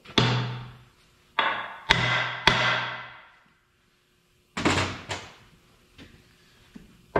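Metal engine parts clanking during a diesel engine teardown: several sharp strikes, each ringing out for about a second, in two groups with a short quiet gap between.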